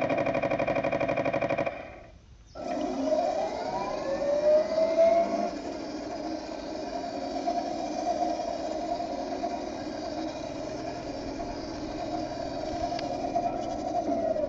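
Heng Long Leopard 2A6 RC model tank's electronic sound unit playing simulated tank engine noise through its small speaker: a pulsing stretch for the first two seconds or so, a brief dip, then a rising rev that settles into a steady whine.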